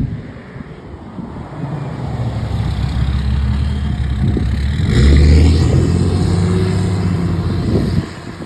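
A motor vehicle's engine running close by as it drives past, growing louder over several seconds and loudest about five seconds in. It drops away sharply about eight seconds in.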